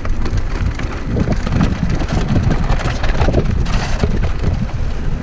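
Mountain bike rattling and clattering over a rough, stony trail on a fast descent, with a dense run of small knocks and ticks. Wind buffets the microphone throughout.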